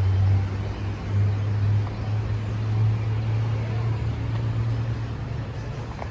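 Low steady rumble of distant road traffic, with a light even outdoor background noise.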